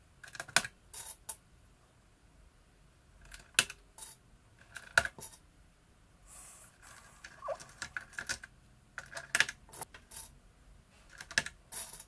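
Plastic keycaps clacking as they are pressed back onto a Monterey K101 keyboard's blue Alps switches: short clusters of sharp clicks with quiet gaps between.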